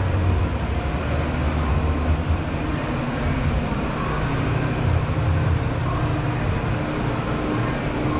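Steady low rumble and rush of air from ventilation fans running, with a faint steady hum.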